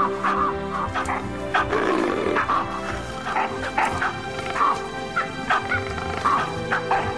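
Background music with steady sustained tones, over which short barking animal calls repeat irregularly, about two a second.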